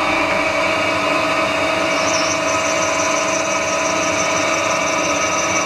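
Metal lathe running under power feed, turning a black Delrin (acetal) rod dry with no coolant: a steady machine whine with several pitched tones. A higher thin whine joins about two seconds in.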